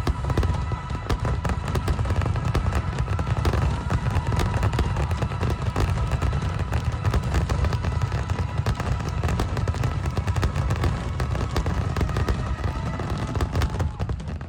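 Aerial fireworks going off continuously: a constant deep rumble of bursts with dense crackling over it, easing off near the end.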